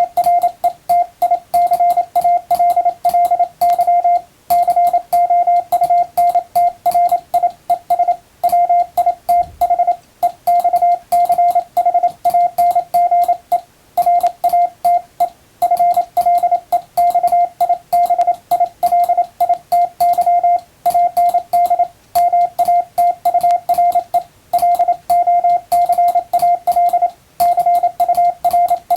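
Morse code sent with an electronic keyer: one steady mid-pitched beep keyed rapidly on and off into dits and dahs, spelling out English plain-language text at a fairly fast speed, with short gaps between words.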